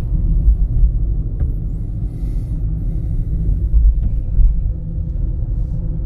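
Steady low road rumble inside a moving car's cabin.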